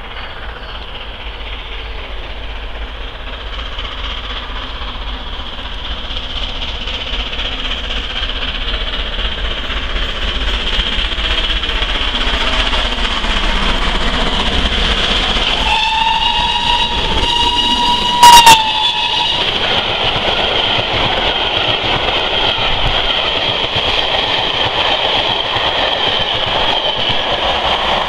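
GWR Castle class 4-6-0 steam locomotive 5043 approaching, its running noise growing steadily louder under a steady high ringing. About 16 s in it sounds its whistle, one steady note for about three and a half seconds, with a very brief, much louder burst near the end of it.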